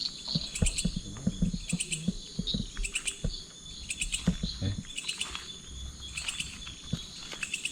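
Night insect chorus: crickets giving a steady high trill with short chirps repeating in quick clusters over it, and scattered soft low knocks underneath.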